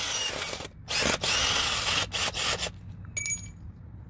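Cordless drill/driver backing a screw out of a handrail's base plate anchored in concrete, running in a few stop-start bursts over the first three seconds. About three seconds in comes a short metallic clink that rings briefly.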